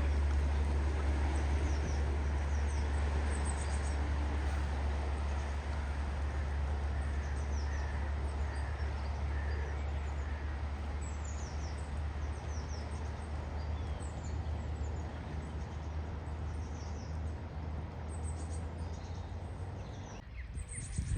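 Outdoor roadside ambience: a steady low rumble that slowly fades and drops away near the end, with birds chirping now and then.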